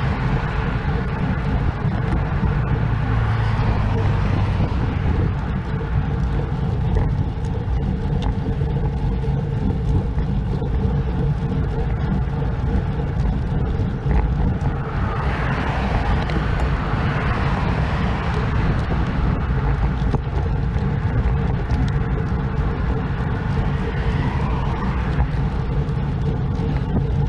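Road traffic driving past a bicycle on a highway, over a constant low rumble of wind on the camera microphone. The traffic noise swells twice, near the start and about halfway through.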